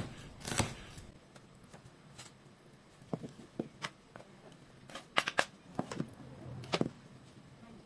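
Scattered sharp clicks and knocks of a kitchen knife against a wooden cutting board and a plastic bowl as chopped celery leaves are scraped off the board, with a quick cluster of knocks about five seconds in.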